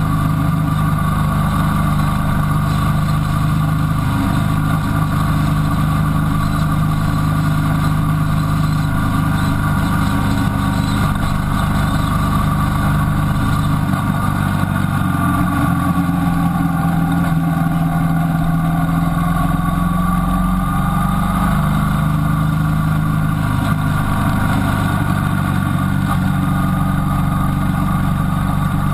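Motorcycle engine running at steady revs on the move, heard from the bike itself, its pitch shifting slightly around the middle.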